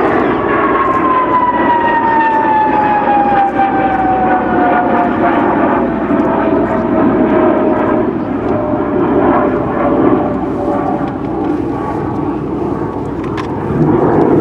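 A pair of F-104 Starfighters' General Electric J79 turbojets passing in formation: a loud, steady jet noise with a whine that falls in pitch over the first eight seconds or so as the jets fly away.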